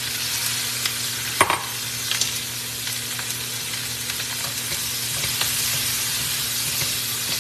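Onions, bell peppers and freshly added sliced mushrooms sizzling in a hot wok over high heat, stirred and scraped with wooden spatulas. There is a sharp clack about a second and a half in.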